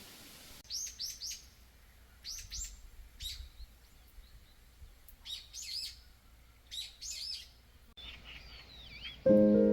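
Small songbirds chirping in about five short groups of two or three sharp, down-slurred notes. About eight seconds in, a different bird calls with lower swooping notes, and soft sustained music starts near the end, louder than the birds.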